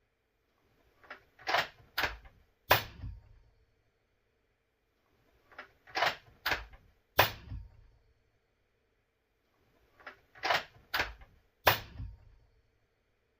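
Suppressed .300 Blackout bolt-action rifle firing subsonic 220-grain rounds, three shots about four and a half seconds apart. Before each shot come a few sharp clicks of the bolt being worked, nearly as loud as the muffled report, which rings briefly after each shot.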